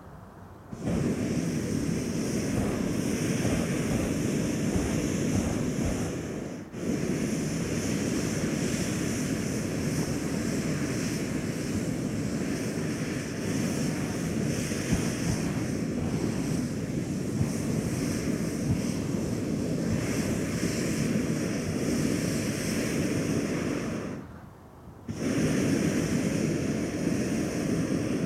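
Hot air balloon's propane burner firing in long blasts: a steady rush of noise that dips briefly about six seconds in and stops for about a second a few seconds before the end, then fires again.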